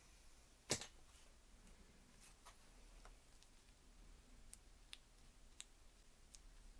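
Quiet handling noise: one sharp click about a second in, then a few faint ticks, from gloved hands working thick molybdenum grease into an engine oil pump.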